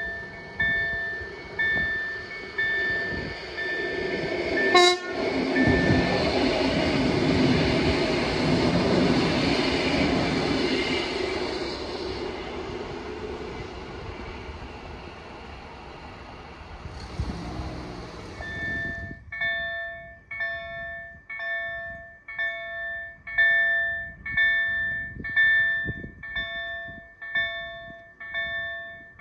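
KLD-4103 electric level-crossing bell striking about once a second. About five seconds in there is a short sharp sound, and a train rumbles over the crossing, drowning the bell for about twelve seconds before fading away. After that the bell rings on clearly.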